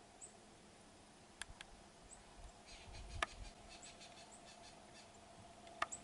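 Faint outdoor ambience: a few short, high bird chirps scattered through, with several sharp clicks, the loudest about halfway, over a faint steady hum.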